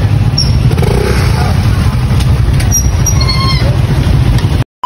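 Street traffic: vehicle engines running with a steady low rumble and faint voices. It cuts off suddenly near the end.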